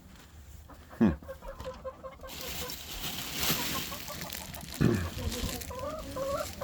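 Hens clucking in a chicken coop: a quick run of short repeated clucks just after a second in and drawn-out calls near the end, with two louder short sounds at about one and five seconds.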